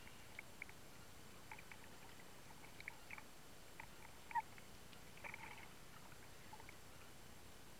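Underwater ambience heard through a camera housing: a faint steady hiss with scattered, irregular small clicks and ticks, one sharper click about halfway through.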